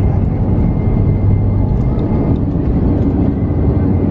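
Airbus A320's jet engines at takeoff thrust, heard from inside the passenger cabin during the takeoff roll: a loud, steady rumble with a low hum and a faint high whine running through it, and a few faint clicks in the middle.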